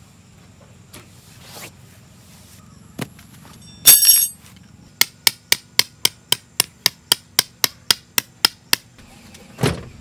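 A hammer driving a tent stake into grassy ground: about fifteen sharp strikes, roughly four a second, after a single loud ringing clang. A dull thump near the end.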